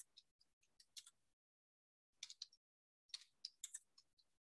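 Faint keystroke clicks on a computer keyboard, typed in short runs with a pause of about a second in the middle.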